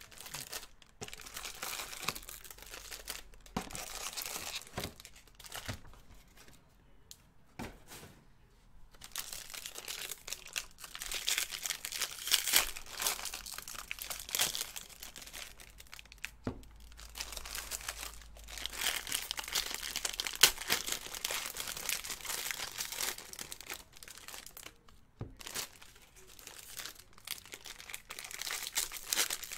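Trading card pack wrappers (Bowman Draft Super Jumbo packs) crinkling and tearing as they are handled and ripped open, in irregular bursts with a few short pauses.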